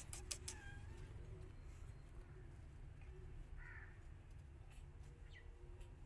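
Quiet enclosure with a few faint clicks of paws scuffing cardboard at the start, then one short, faint animal call about halfway through.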